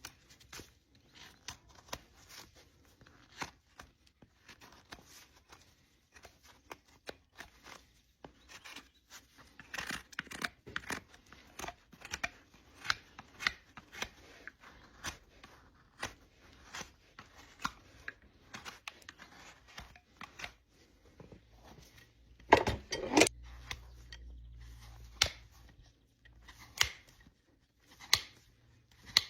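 Hoof-trimming tools cutting and paring a draft horse's front hoof: a run of irregular crisp snips and scrapes, a few a second, with a cluster of louder crunching strokes a little past two-thirds through.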